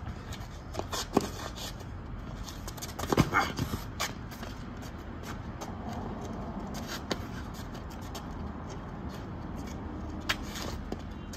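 Boxing gloves smacking during sparring, with sneakers shuffling and scuffing on asphalt: a few single hits and a quick cluster of several about three seconds in, over a steady low background hum.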